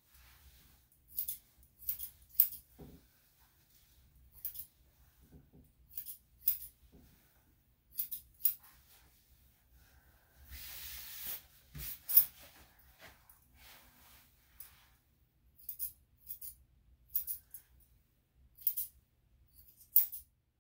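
Grooming scissors snipping a dog's wet coat: short, sharp metallic snips, often in quick pairs, every second or so. There is a brief rustle about halfway through.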